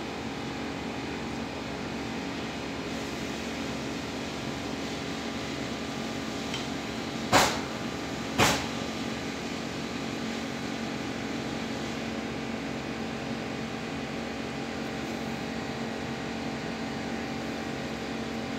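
Steady mechanical hum with a few fixed tones in it, like a fan or ventilation unit running. About seven seconds in come two sharp knocks, a second apart.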